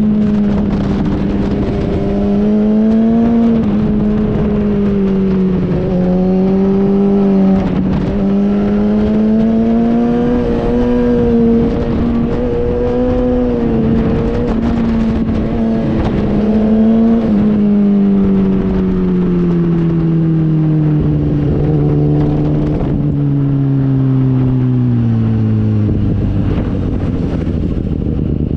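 Motorcycle engine running hard on a race circuit, its note rising and falling with the throttle, then dropping steadily as the bike slows, with stepped drops near the end. A steady rush of wind noise runs underneath.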